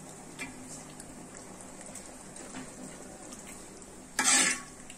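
A perforated ladle stirring mutton gravy in a pot: faint liquid sloshing with a few light clinks, and a short loud scraping hiss about four seconds in.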